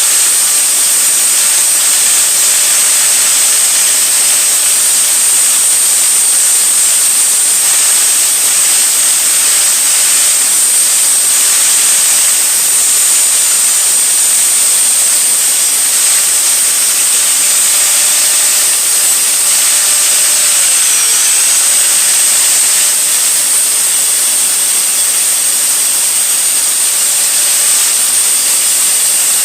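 Electric grinder running continuously as it sharpens a steel lawnmower blade, a steady high whine over grinding hiss. The motor's pitch dips briefly about two-thirds of the way through as it is loaded.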